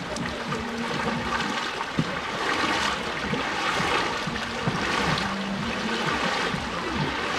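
Floodwater rushing across a road: a steady, noisy wash of moving water that swells and eases every second or two. A low steady hum comes in briefly twice.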